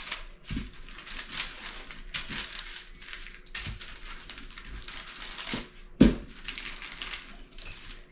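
Wooden rolling pin rolled back and forth over cake batter on parchment paper, the paper rustling and crinkling with each stroke. There is a sharp knock about six seconds in.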